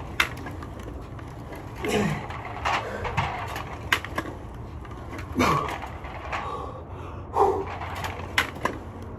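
A man exercising through his final reps, making short strained vocal sounds with a falling pitch about every two to three seconds. Sharp clicks and knocks come in between.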